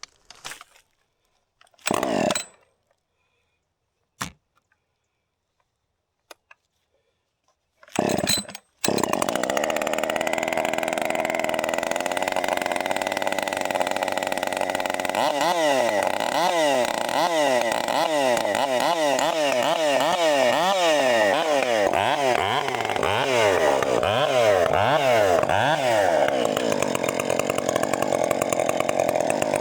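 Husqvarna 562 XP two-stroke chainsaw being cold-started: a pull on the starter cord about two seconds in, a few small clicks, then another pull near eight seconds in on which the engine catches. It runs steadily for several seconds, then is revved up and down over and over.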